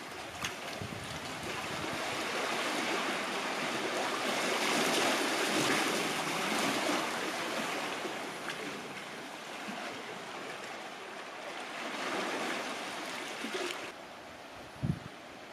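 Sea water washing and surging among rocks and through a sea arch, a steady rushing wash that swells in the middle and again later. Near the end it drops to a quieter wash, broken by one short low thump.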